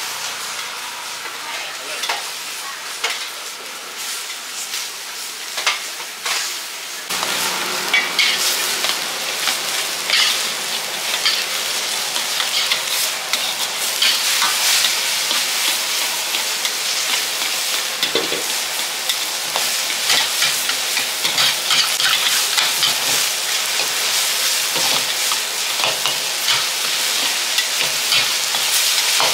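Pad Thai noodles sizzling as they stir-fry in a wok, with a metal ladle scraping and clinking against the pan as they are turned. The sizzle grows louder about seven seconds in.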